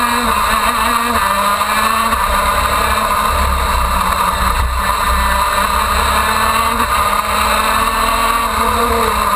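Onboard sound of a KZ2 shifter kart's 125cc two-stroke engine running hard at high revs as the kart races through a bend and along a straight, loud and continuous with small changes in pitch.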